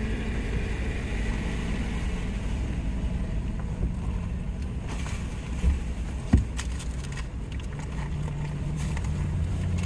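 Steady low rumble of an idling minivan heard from inside the cabin, with a couple of short knocks and light clicks from the people eating, a little past halfway.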